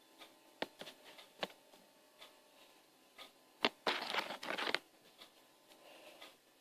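Toys being handled: scattered light clicks and knocks, with a short rustling scrape just under a second long about four seconds in, the loudest sound.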